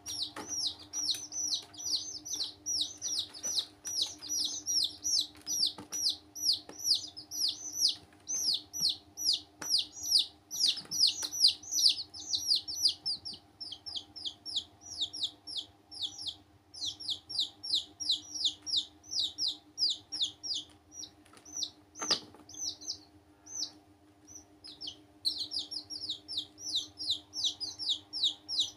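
Several baby chicks peeping continuously: rapid, high, downward-sliding peeps, several a second, thinning briefly about three-quarters through. A single sharp knock is heard just before that lull.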